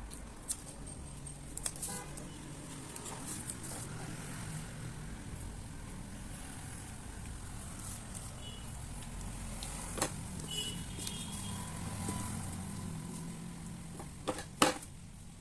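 A low, steady rumble with a few sharp clicks and taps, the loudest a double click near the end.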